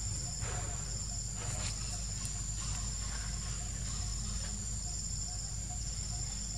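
Insects trilling in the background: a constant high-pitched buzz with a second high chirp pulsing about twice a second, over a steady low rumble.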